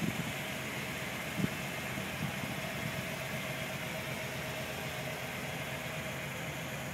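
1978 Chevrolet Blazer's engine idling steadily.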